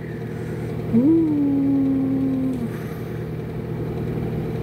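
A steady low engine-like drone, with one held tone that starts about a second in, drifts slightly down and stops after about a second and a half.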